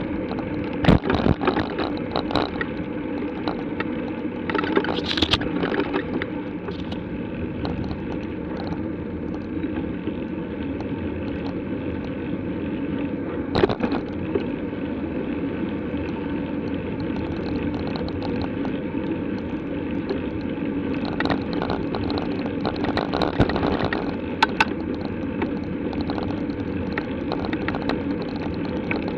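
Bicycle ride noise picked up by a camera on the moving bike: steady rumble of tyres and wind, with a few sharp knocks from bumps in the road.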